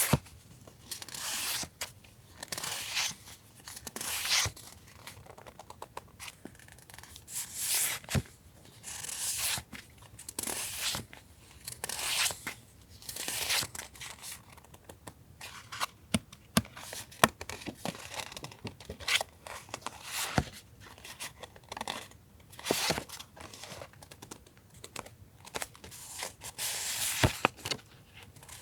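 Paper and plastic stationery packaging being handled: repeated crinkling and rustling, with a few sharp clicks in between.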